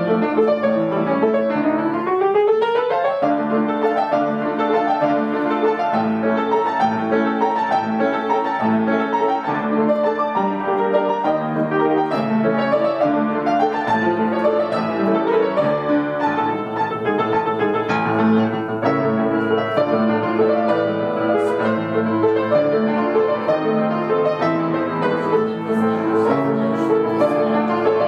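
Instrumental music led by keyboard, played steadily throughout, with a rising sweep about two seconds in.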